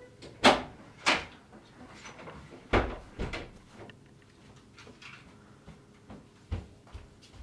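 A series of sharp knocks and bangs from a door being handled: four loud ones in the first three and a half seconds, then two softer ones near the end.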